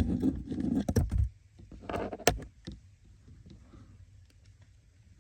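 Hands handling wiring and plastic under a car's dashboard: rustling with several sharp clicks, the loudest about two seconds in, then quiet.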